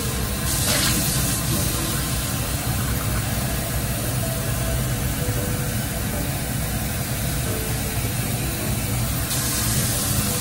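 Tap water running steadily into a cooking pot, filling it to cover soaked red beans.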